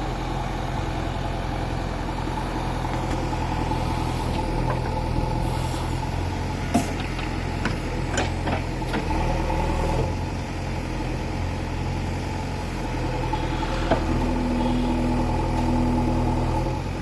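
JCB backhoe loader's diesel engine running steadily, with a few sharp knocks partway through.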